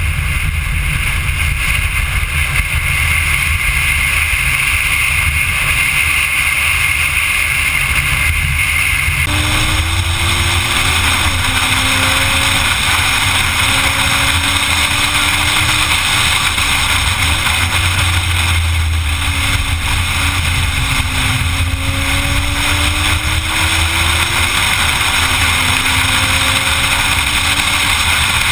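Corvette Z06 at speed on a race track, heard through a camera mounted on the car's body: a loud, steady rush of wind and road noise over the engine. About nine seconds in the sound changes abruptly, and after that the engine note shows through, rising and falling gently with the revs.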